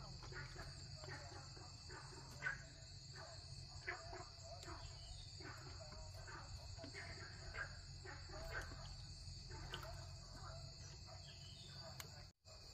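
Steady high-pitched chirring of insects, with faint irregular knocks and rustles scattered through it; the sound drops out for a moment near the end.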